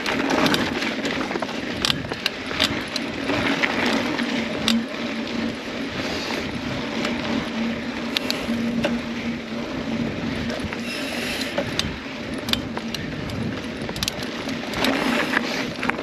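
Mountain bike being ridden along a dry dirt trail: steady rolling noise with frequent clicks and rattles from the bike.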